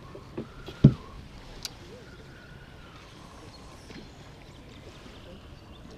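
A single hard thump about a second in, with a few lighter clicks, over steady low background noise.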